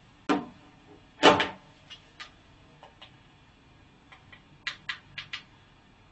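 Knocks of a smartphone and a remote being handled on a hard tabletop, the loudest about a second in, then four quick small clicks near the end from remote buttons being pressed.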